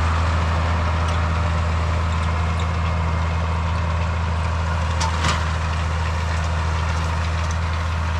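Tractor diesel engine running at a steady speed, with a steady low drone. There are a couple of brief clicks about five seconds in.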